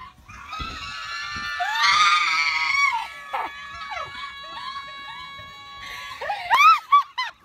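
High-pitched screaming: a long, wavering scream in the first few seconds, then short, rising-and-falling squeals near the end, which are the loudest part.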